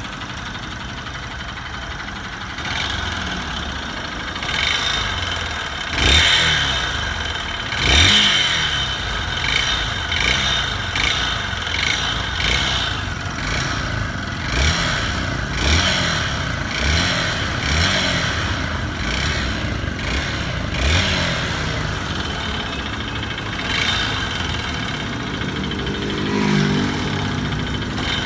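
Honda Bros 150 single-cylinder four-stroke engine running and revved again and again in short blips of the throttle. It has a knocking noise ('batido') that shows up even after an oil top-up; the owner traced it to a scored cylinder and a worn piston skirt, with heavy carbon buildup.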